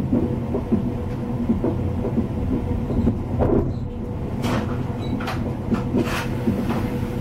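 Caledonian Sleeper train heard from inside the coach while running: a steady low rumble of the running gear with a faint constant hum. Several sharp knocks and clicks come from about halfway through.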